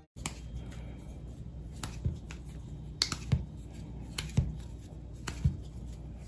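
Small pieces of dumpling dough being pinched off a rolled rope of dough and set down on a countertop: soft sharp taps about once a second, often in quick pairs.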